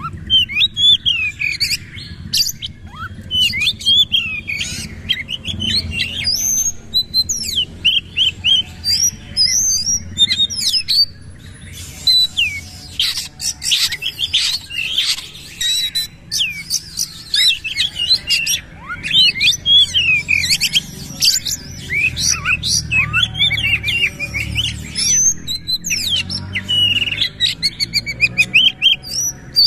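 Caged male oriental magpie-robin (kacer) singing a long, fast, varied song of loud whistles, sweeping notes and harsh chirps, delivered almost without pause.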